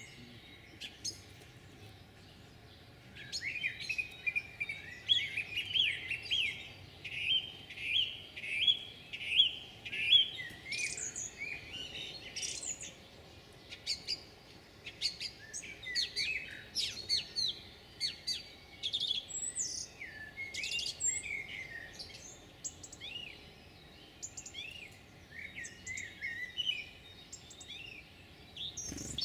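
Small songbirds singing and chirping. A fast run of repeated chirps starts about three seconds in and grows louder for several seconds, then gives way to scattered, varied chirps and calls.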